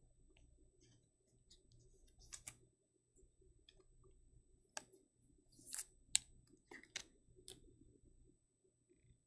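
Faint handling noises from trading cards and their packaging: a few scattered light clicks and short rustles, loudest around six seconds in, over a low hum.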